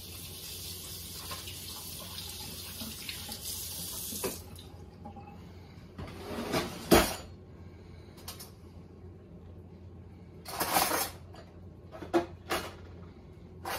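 Kitchen faucet running as an apple is rinsed under the stream, shut off about four seconds in. After that come scattered knocks and clatter of kitchen handling, one sharp knock partway through, and a drawer being opened near the end.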